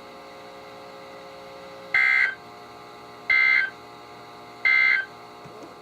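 NOAA Weather Radio end-of-message signal: three short bursts of SAME digital data tones, each about half a second long and about a second and a half apart, closing the flood warning. A low steady hiss from the weather radio receiver runs between the bursts.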